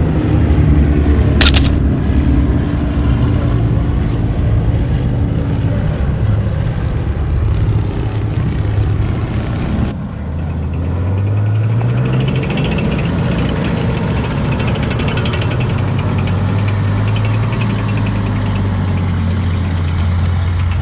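A four-engine World War II bomber's radial engines drone as it flies low past, with a brief sharp click about a second and a half in. About ten seconds in the sound cuts to an M4 Sherman tank's engine, which revs up and then runs steadily as the tank drives along.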